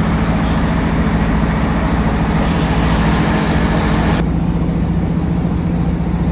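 Steady road-vehicle noise: a low engine hum under a continuous rush of noise. The higher hiss drops away suddenly about four seconds in while the hum carries on.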